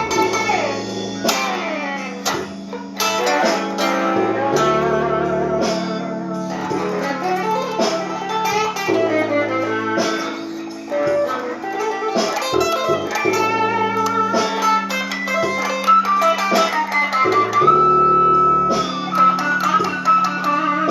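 Blues guitar playing: picked single-note lines with bent notes, and a long held, wavering note near the end, over sustained low bass notes.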